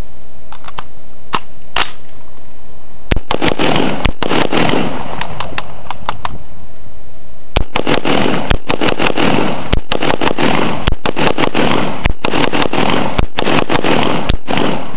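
DPMS AR-15 rifle in .223/5.56 firing. A few light clicks come first, then a short group of shots about three seconds in, a pause, and a steady string of about a dozen rapid semi-automatic shots, roughly two a second, each with a short echo. The rifle cycles through the fast fire of a function test without jamming.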